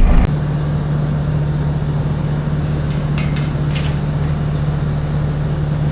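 Tractor engine running at a steady speed, a constant low drone, with a few faint ticks.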